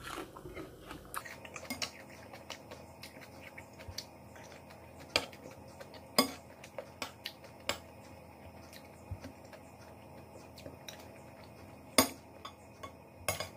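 Cutlery clicking and clinking against a plate while eating: scattered sharp clicks, a few of them louder than the rest.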